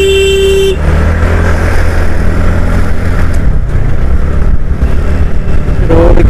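A vehicle horn honks once at the start, a steady tone lasting under a second. After it comes the steady low rumble of a TVS Ntorq scooter being ridden, mixed with wind noise.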